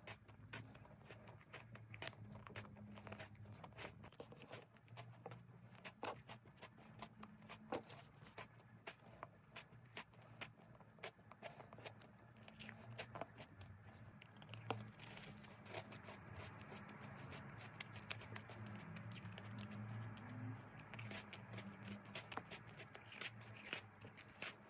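Faint close-up eating sounds: irregular crisp clicks and crunches of biting into and chewing a chocolate-coated ice cream bar, over a low steady hum.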